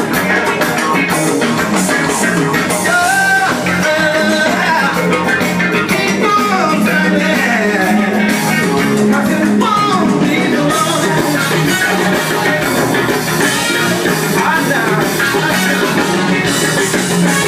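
Live band music with a lead vocal played loudly through a home speaker system with Boss woofers, driven by QSC GX5 rack amplifiers, and picked up in the room.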